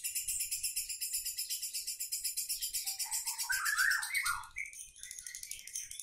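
Lovebird's long ngekek: a rapid, high-pitched chattering trill that runs on without a break, with lower squeaky notes mixed in about three to four seconds in and a brief lull near the end.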